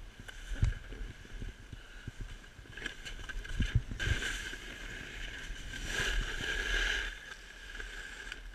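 Snowboard sliding and scraping over snow, with a few knocks and bumps from the ride. About four seconds in a louder, longer scrape sets in for a few seconds as the board turns hard and slows to a stop.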